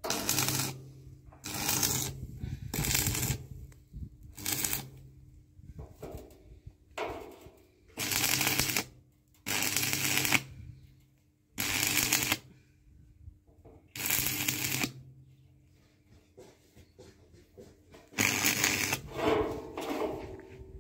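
Electric arc welding on steel sheet: about ten short tack welds, each a half-second to two-second burst of crackling arc with the welding transformer's hum under it, the longest near the end.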